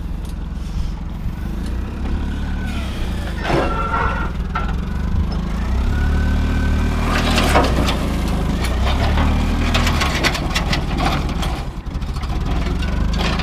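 A vehicle engine running steadily at low revs, with metal knocks and clatters, sparse at first and frequent from about seven seconds in, as scrap metal is loaded onto a truck bed.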